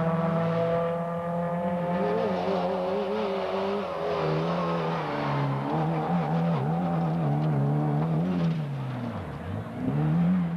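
Rally car engine at high revs, its pitch first sliding slowly down, then rising and falling with throttle and gear changes as the car drives the stage. Near the end the revs drop sharply and climb again.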